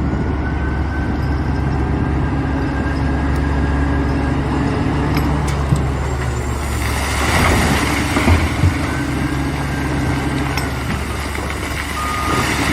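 Heavy vehicle engine running steadily. About seven seconds in a hiss swells up, and two brief low thumps follow.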